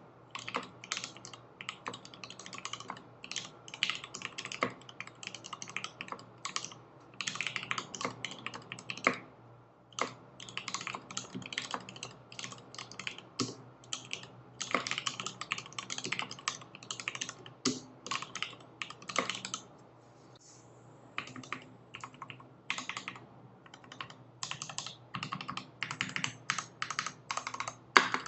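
Typing on a mechanical keyboard with lubed Tealios linear switches in an aluminium case and GMK keycaps: quick runs of keystroke clacks with short pauses, one about ten seconds in and a longer one around twenty seconds.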